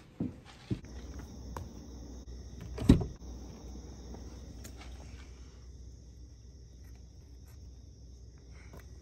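Steady high-pitched chorus of night insects, crickets, over a low steady hum. There are a few handling knocks early on and one sharp, loud knock about three seconds in.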